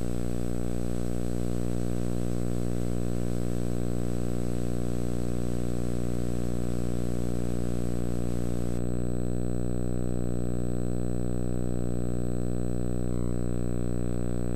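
Steady electrical hum-buzz with many overtones and a thin high whine, the constant background noise of an old videotape soundtrack. The hiss above it drops away about nine seconds in.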